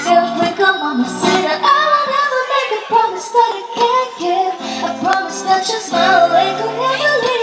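Music: a song with a woman singing over plucked guitar accompaniment.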